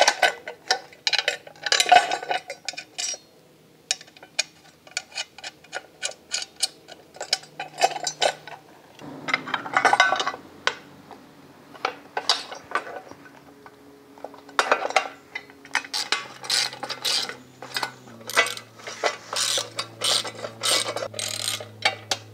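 Hand socket ratchet clicking in bursts of rapid ticks as bolts and lock nuts are run down on a steel motorcycle luggage rack, with scattered clinks of small hardware between the bursts.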